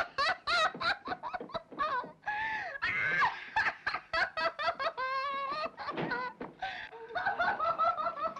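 A young woman sobbing hard, in quick broken gasps with a few longer wailing cries.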